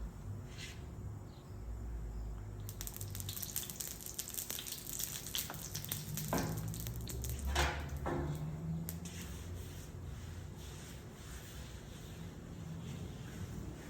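Food sizzling and crackling on a Blackstone flat-top gas griddle, busiest in the middle, with a couple of brief louder sounds about six and seven and a half seconds in.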